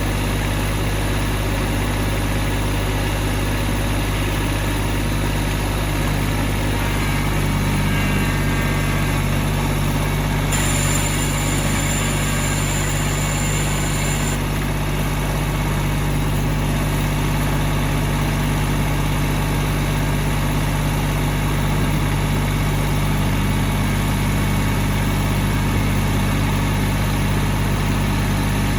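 Loader's engine running steadily at a low, even speed while its bucket scoops up a heavy crate. About ten seconds in, a high whine joins for about four seconds.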